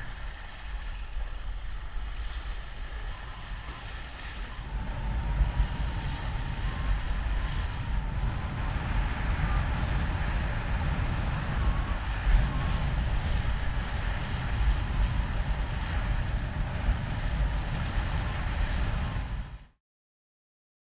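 Wind buffeting the microphone over water rushing and hissing past a kite foil board as it rides across the sea. The sound cuts out about a second before the end.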